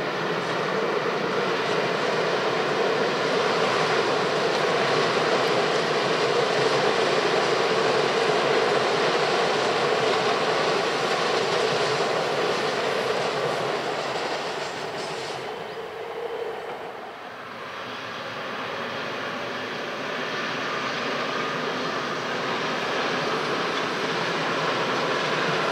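Electric multiple unit running past on the line and fading away, its sound dipping to a low point about two-thirds of the way through. Then a second train, an electric locomotive hauling passenger coaches, comes in and grows louder toward the end.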